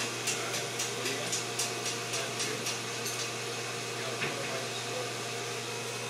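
Steady machine hum with a low drone from a running refrigeration system, with faint rapid ticking, about three a second, through the first half.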